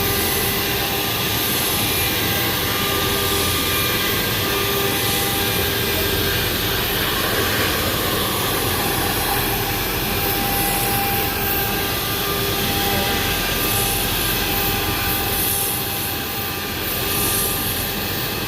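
Flatbed pattern-cutting machine running: a steady whirring drone with faint whining tones that come and go.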